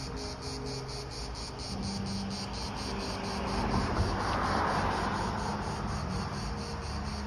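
Cicadas singing: a steady high buzz pulsing evenly at about four beats a second. A broad rush of noise swells and fades around the middle.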